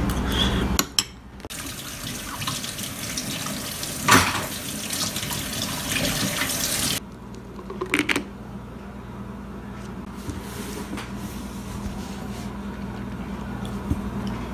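Running water rushing steadily for several seconds, with one sharp clatter about four seconds in. Then, after a cut, gummy vitamins are tipped out of a plastic bottle into its plastic cap, making a few quick clicks and rattles about eight seconds in.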